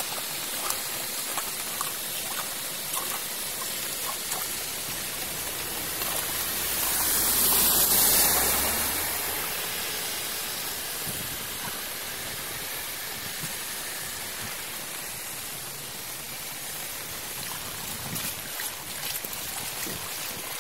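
Muddy floodwater rushing and churning as it pours into a storm-drain culvert, a steady wash of water noise mixed with rain. It swells louder for a couple of seconds about a third of the way in.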